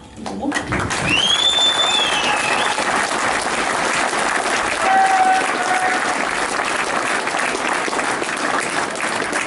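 Audience applauding after a song ends, the clapping building up within the first second and then holding steady, with a shrill, high cheer rising and falling about a second in.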